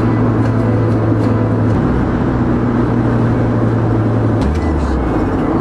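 Steady engine and road noise inside a car cruising at highway speed, a continuous low drone.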